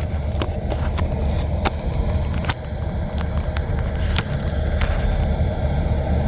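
Motor vehicle running with a steady low rumble, with a few light clicks or taps scattered through it.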